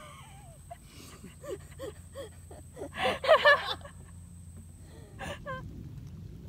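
A woman laughing: short breathy bursts building to a loud peal about three seconds in, followed by a brief vocal sound. A low, steady rushing noise comes in near the end.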